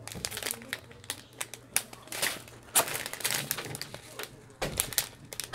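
A strip of small sealed plastic bags of diamond-painting drills crinkling and rustling as it is handled, in irregular crackles.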